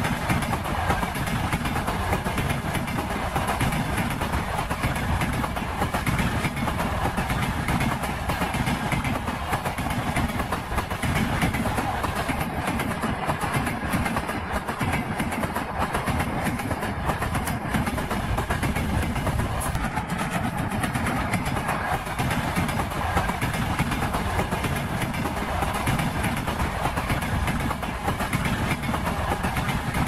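Passing train's wheels rumbling and knocking on the rails in a steady, unbroken clatter.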